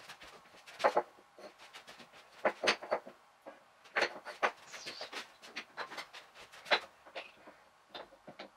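Wooden blocks and clamps knocking and clattering on a wooden workbench as they are set in place and clamped down, played in fast motion: a quick, irregular string of knocks and clicks.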